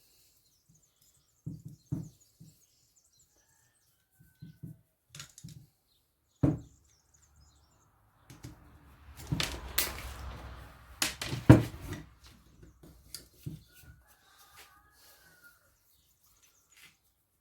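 Tools and metal motor parts knocking and clinking while an old washing-machine electric motor is taken apart: scattered light clicks, one sharp knock about six seconds in, then a stretch of scraping with several loud clanks, and a brief squeak near the end.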